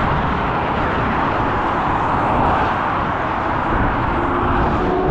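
Steady road and wind noise from a moving car, the 1999 BMW 328i. Near the end its engine note comes up, rising slightly in pitch as the car speeds up.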